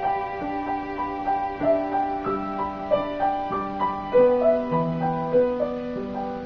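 Cello and piano playing classical music together: the cello holds long low bowed notes while the piano moves in quicker notes above.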